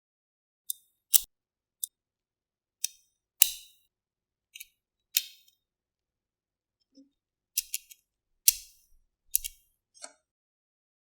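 Sharp, high clicks and snaps of small hard parts, about fourteen of them at irregular intervals over ten seconds, with silence between.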